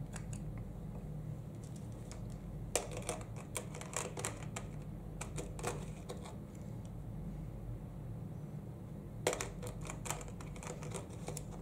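Plastic and metal clicks and light knocks from a Panasonic Lumix GH5 camera body and Lumix 12-35 mm lens being handled while the lens is fitted to the body's mount, in two bursts, about three seconds near the start and again near the end, over a steady low hum.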